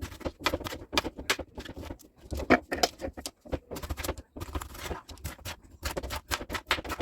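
Kitchen preparation sounds: utensils and cookware clicking and knocking irregularly, with a short scraping stretch about two-thirds of the way through.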